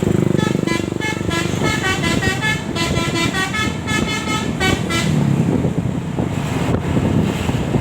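Telolet musical horn of a Sumber Jaya bus playing a quick run of short notes of changing pitch. The run starts about half a second in, lasts about four seconds and then stops, leaving vehicle and road rumble.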